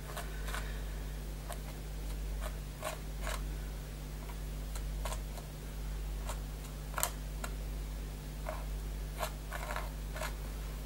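Palette knife scraping whipped spackle texture paste across a stencil on a card book cover: short, irregular scrapes and light clicks, one sharper click about seven seconds in, over a steady low hum.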